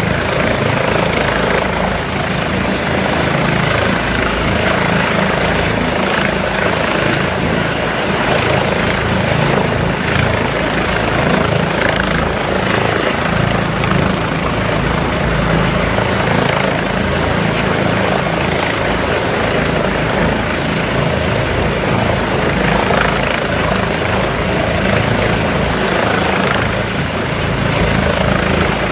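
Eurocopter EC135 air ambulance helicopter hovering low at close range, its rotor and engines running steadily and loudly.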